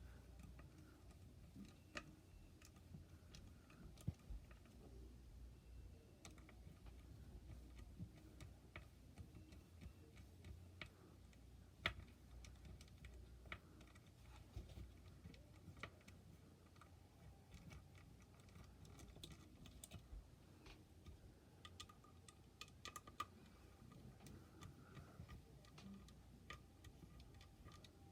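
Near silence with faint, scattered clicks and taps from hands handling a graphics card and its small parts on a bench.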